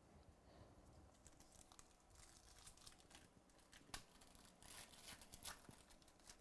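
Faint crinkling and tearing of a trading-card pack wrapper being ripped open by hand. It comes as a run of crackles from about two seconds in, with one sharp crack around four seconds in.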